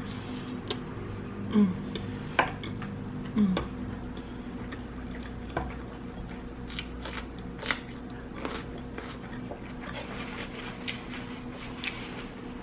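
Close-miked eating: a person biting and chewing food, with scattered sharp wet clicks and smacks of the mouth.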